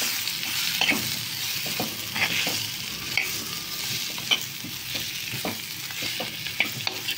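Drumstick pieces and onion-tomato masala sizzling in oil in a clay pot, stirred with a steel spoon that scrapes and clicks against the pot at irregular moments over a steady hiss.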